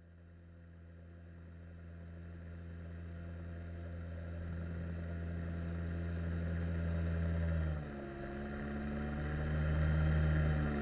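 Outboard jet motor on an inflatable boat, running steadily and fading in. About eight seconds in, the engine note dips briefly and then settles at a slightly different pitch.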